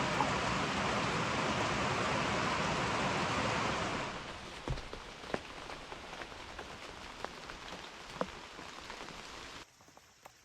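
Heavy rain pouring down as a steady hiss. After about four seconds it drops to a quieter patter with scattered single taps, then cuts off abruptly near the end.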